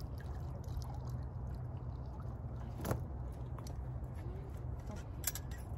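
A steady low rumble, with one sharp knock about three seconds in and a short clatter of clicks near the end.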